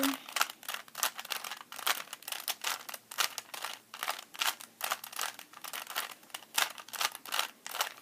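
Plastic 3x3 Rubik's Cube being twisted by hand, its layers clicking and clacking in a quick, irregular run of turns.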